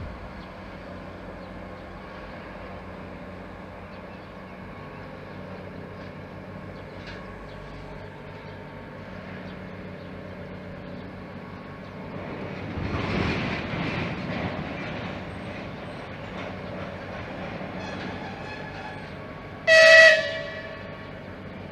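Passenger train running with a steady rumble that swells for a couple of seconds midway. Near the end comes one short, loud train horn blast.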